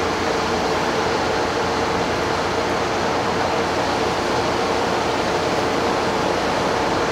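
Tri-Rail diesel locomotive standing and idling: a steady, even mechanical noise with a faint steady hum and no changes.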